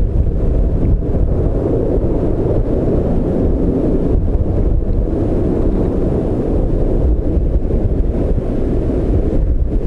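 Widebody twin-engine jetliner's engines at takeoff thrust, a steady low rumble, mixed with heavy wind buffeting on the microphone.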